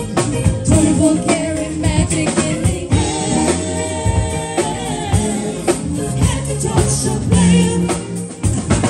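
Live band playing: women singing into microphones over a drum kit, electric bass and electric guitar.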